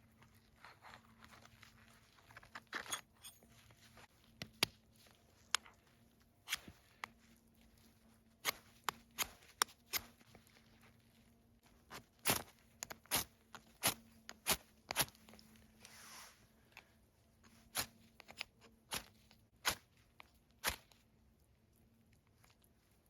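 Irregular sharp cracks and taps, about twenty in all and unevenly spaced, most likely a large folding knife at work. A faint steady hum runs beneath them.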